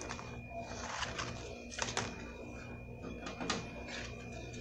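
Banana leaf crackling and rustling as it is passed over a gas burner flame to wilt it pliable, with sharp snaps about two seconds in and again near the end.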